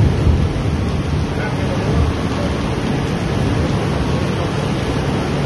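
Floodwater rushing down a street in a fast torrent: a loud, steady wash of water.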